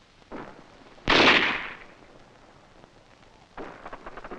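A single loud gunshot about a second in, dying away over about half a second. A cluster of softer clicks and rustles follows near the end.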